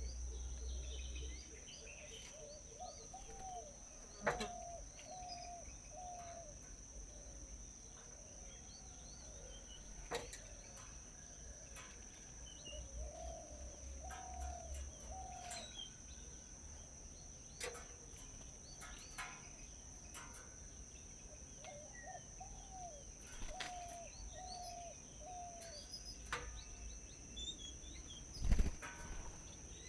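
Several birds chirping, with runs of short, low, repeated call notes, over a steady high-pitched insect drone. Scattered sharp clicks and taps are heard, and there is a louder thump near the end.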